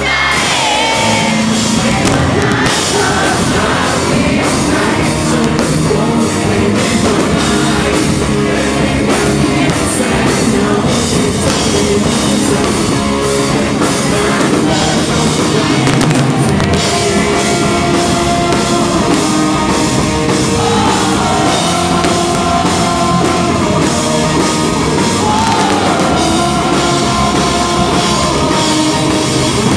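Rock band playing a song live, loud and steady: electric guitar and drum kit, with singing.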